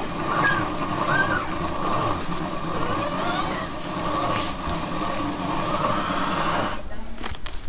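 Cocoa beans being ground: a steady, rough grinding noise that breaks off abruptly shortly before the end, followed by a few clicks.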